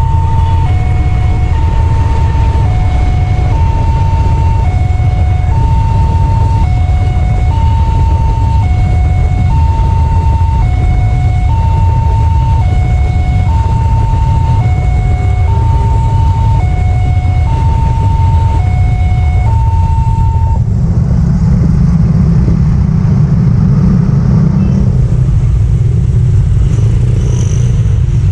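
Railway level-crossing warning sounding an electronic two-tone alarm, alternating high and low tones about once every two seconds, over the low rumble of a diesel-hauled freight train passing. The alarm cuts off about twenty seconds in, and motorcycle engines take over as the waiting traffic moves off.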